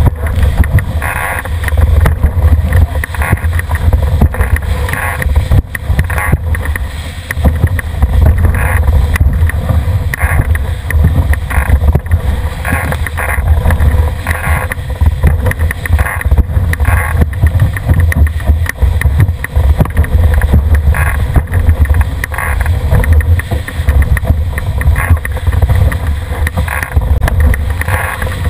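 Wind buffeting the microphone with a heavy low rumble, over water rushing and splashing against the hull of a Cherub dinghy sailing fast downwind, with a splash of spray about once a second.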